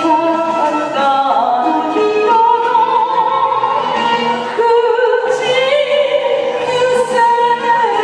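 A woman singing into a microphone over musical accompaniment, holding long notes with a wide vibrato.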